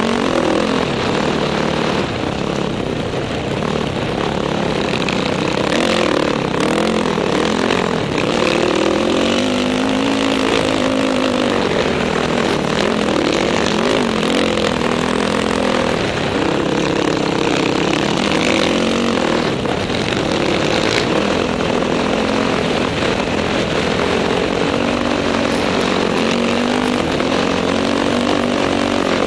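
Dirt bike engine heard from the rider's helmet camera, its revs rising and falling over and over with throttle and gear changes, over a steady rush of wind on the microphone.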